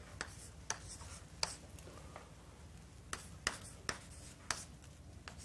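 Chalk tapping and scratching on a blackboard as figures are written, about nine short, sharp strokes at irregular intervals.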